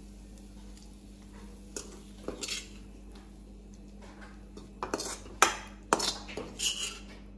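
Steel spatula scraping cooked onion and tomato out of a kadai and knocking against the rim of a bowl: scattered metal scrapes and clinks, a few about two seconds in and a busier run in the second half.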